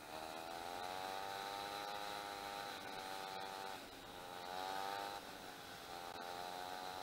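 Dirt-bike engine running while riding along a road, its pitch dipping and climbing again a few times as the throttle changes. A faint steady high whine sits under it.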